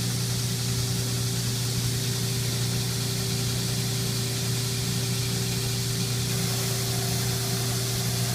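Old furnace blower running steadily as a dust extractor, pulling air through the hood of a belt grinder: a constant rush of air over a steady motor hum.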